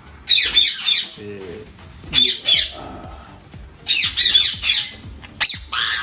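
A young green parakeet squawking in short harsh screeches while held wrapped in a cloth. The screeches come in four clusters of two or three calls, one cluster about every second and a half.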